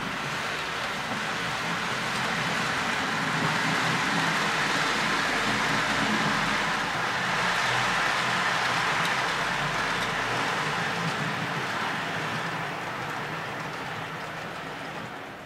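HO-scale model train, a Jouef BB 36000 electric locomotive hauling a rake of Roco flat wagons, rolling past on the track: a steady running noise with a low motor hum, loudest midway as the wagons pass close and fading away near the end.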